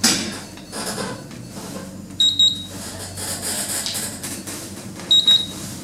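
A lift's button panel beeping as buttons are pressed in an attempt to enter the code for the loading-bay floor. There is a sudden clunk at the very start, then two short, high double beeps about three seconds apart.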